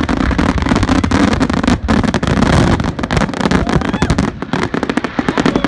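Fireworks display going off close by: a dense, rapid run of cracks and pops over a constant low rumble.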